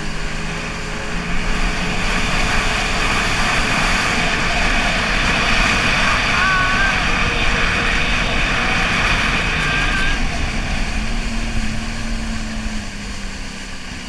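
Jet ski engines running at speed over the water, with a loud rush of spray and wind. The engine note changes pitch a couple of times, and the rushing is loudest through the middle.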